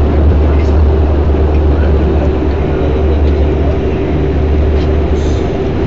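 Fokker turboprop's engine and propeller heard from inside the cabin: a steady low drone with a constant whine above it, as the airliner runs on the ground after landing.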